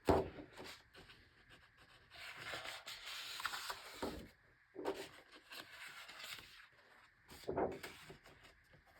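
Large paper pages of an oversized hardcover book being turned, the paper rubbing and sliding with a few soft handling knocks.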